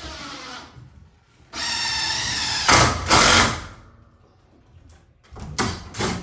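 Cordless drill running in two spells: a short whine that stops about half a second in, then a longer run at steady speed from about a second and a half that turns louder and rougher about three seconds in before stopping. A few short knocks follow near the end.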